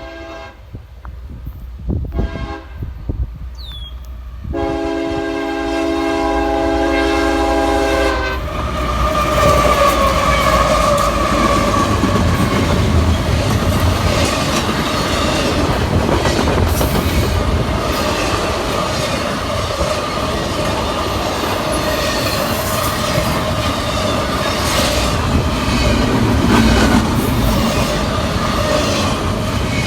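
CSX locomotive horn sounding for the grade crossing: one blast ending just after the start, then a long blast from about four to eight seconds in. After that the train passes loudly, its wheels clacking over the rail joints, with a steady high tone running over the rumble.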